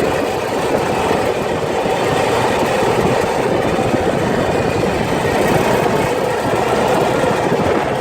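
Arctic Cat off-road vehicle's engine running steadily under way, mixed with wind rushing over the microphone.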